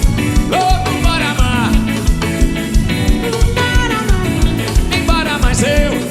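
Upbeat axé music with a steady drum beat and a melodic lead that slides up and down in two phrases.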